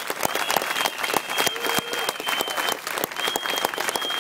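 Large crowd applauding, dense clapping throughout, with a thin high whistle held for about a second at a time, several times over the clapping.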